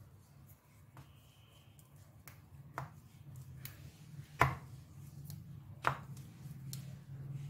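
Wooden rolling pin rolling out a stuffed paratha on a stone rolling board, with a few sharp knocks of the pin against the board, the loudest about halfway through.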